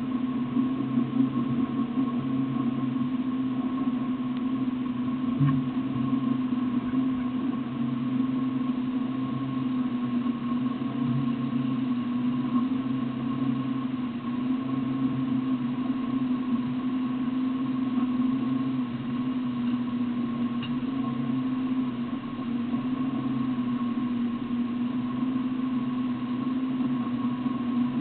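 Land Rover engine idling at a steady, unchanging pitch.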